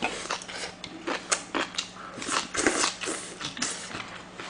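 A person chewing a mouthful of food close to a microphone: irregular wet clicks and smacks of the mouth, a few each second.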